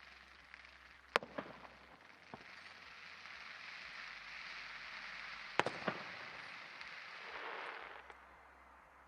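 Fireworks going off: a few sharp bangs about a second in and a pair near the middle, over a long crackling hiss that builds, swells and fades away near the end.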